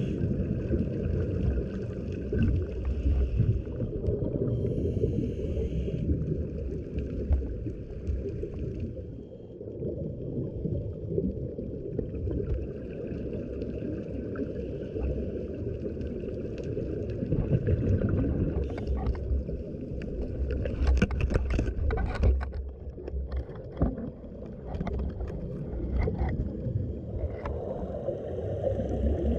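Underwater sound heard through a dive camera's housing: a steady muffled rumble with scuba regulator breathing and gurgling exhaled bubbles, and a run of sharp clicks about two-thirds of the way through.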